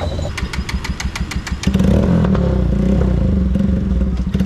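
Motorcycle with a loud aftermarket exhaust running. A quick run of sharp clicks comes in the first second and a half, then the engine note turns louder and steadier at higher revs from about two seconds in.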